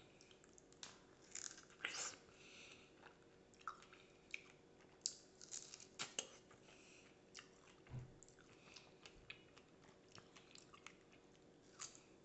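A person biting into and chewing a fresh strawberry topped with yogurt: quiet, irregular mouth clicks and smacks.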